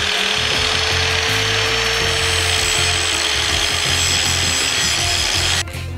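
Angle grinder grinding down welds on a scooter's metal frame, a steady loud grinding that cuts off suddenly near the end.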